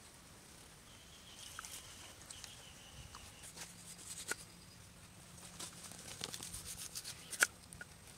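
Faint scattered clicks and light rustling of raw pomfret being handled on a wooden cutting board. The clicks grow busier in the second half, with one sharper tap a little before the end.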